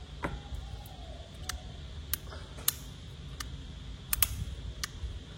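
Metal lighters being handled and set down, making about nine sharp, irregularly spaced clicks and clinks.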